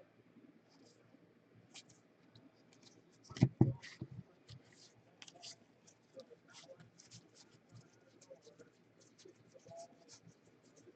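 Football trading cards being handled and flipped through: light scraping and a quick run of small clicks as the cards slide over one another, with two louder knocks about three and a half seconds in.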